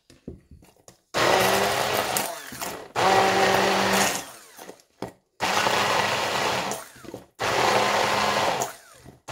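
Hand-held immersion (stick) blender pulsed in about four short bursts of one to two seconds each, starting about a second in, its motor winding down between bursts as it purees a chunky ginger, garlic, chili and soybean-paste dipping sauce in a plastic jug. A few light clicks of handling come before the first burst.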